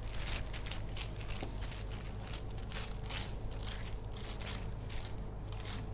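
Rolling pin pressing dough flat under a sheet of baking paper: the paper crinkles and rustles in short, uneven strokes, a few a second.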